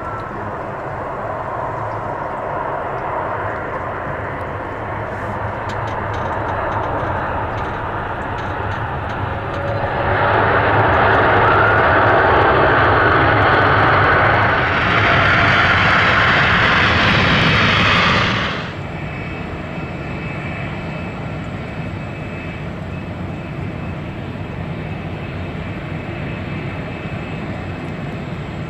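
Boeing 747 freighter's four jet engines during landing on a wet runway: steady jet noise, then about ten seconds in a much louder rush of engine noise and spray on the rollout, typical of reverse thrust, which cuts off abruptly about eight seconds later. After that, quieter steady jet noise of another airliner on approach.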